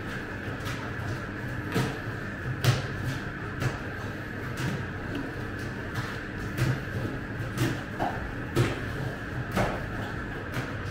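Hands folding and turning wet, high-hydration dough in an oiled stainless steel bowl on a scale, giving a scattering of irregular soft slaps and knocks, the loudest nearly three seconds in. Under them runs a steady background hum.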